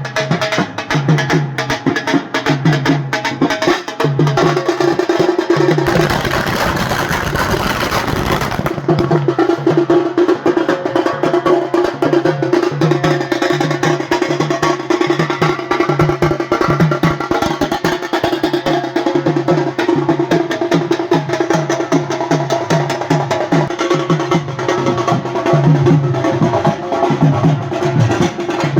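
Background music with a steady drum beat and a held note, with a rushing noise sweep about six seconds in.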